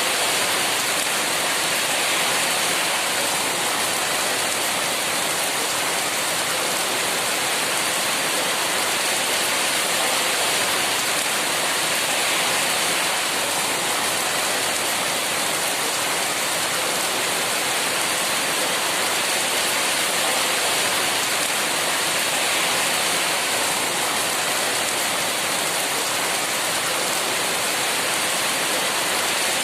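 Heavy rain pouring steadily: a dense, even hiss with no thunder.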